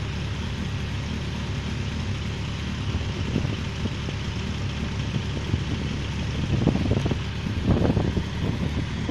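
Steady hum of road traffic and idling vehicles, with gusts of wind buffeting the microphone in the last few seconds.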